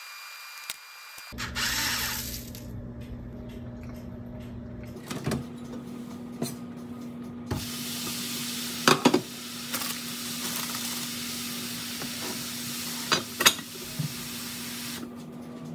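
Heavy enamelled cast-iron Dutch oven lid knocking and clanking against the pot as it is handled, with one loud clank about halfway through and two more close together near the end, over a steady hum and hiss.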